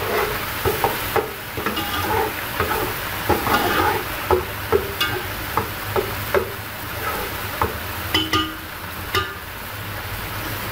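A spoon scraping and clicking irregularly against a steel pot as it stirs a masala paste of tomato, onion-garlic-ginger paste, spices and oil frying in it. A sizzle runs underneath; this is the bhuna stage, frying the masala well. The clicks thin out near the end.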